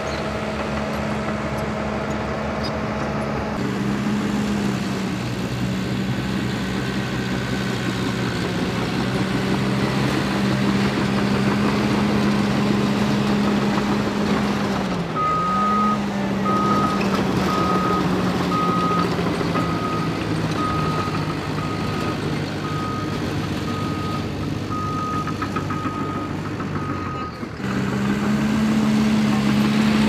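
Caterpillar crawler dozer's diesel engine running steadily. About halfway through the engine note dips briefly, then a backup alarm beeps about once a second for some twelve seconds before stopping.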